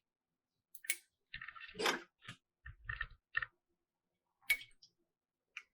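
Handling noise of a cheap plastic-and-metal twist corkscrew against a wine bottle: a scattered series of sharp clicks and taps, with a brief scraping rustle about a second and a half in.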